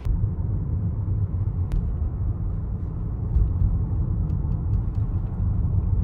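Steady low road rumble heard from inside a moving car's cabin.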